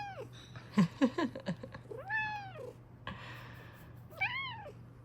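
Bengal cat meowing back and forth: three rising-and-falling meows about two seconds apart, with short clicks and low chirps about a second in.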